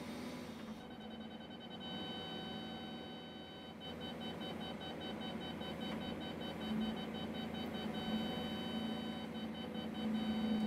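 Audible warning of the Cat Grade Control system in a Cat 352 hydraulic excavator's cab: an electronic tone that comes on about a second in, holds steady, then breaks into rapid beeps from about four seconds in as the bucket works the trench toward the set depth. Under it runs the low hum of the excavator's engine.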